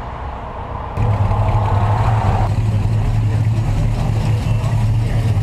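A vehicle engine idling, a steady low rumble that comes in abruptly about a second in, after a stretch of quieter outdoor noise.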